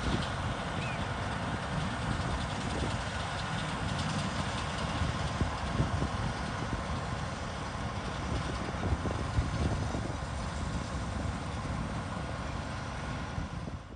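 Massey Ferguson 760 combine harvester running steadily while harvesting oats: its V8 engine and threshing machinery make a dense, even rumble with a faint steady whine above it. The sound cuts off abruptly at the very end.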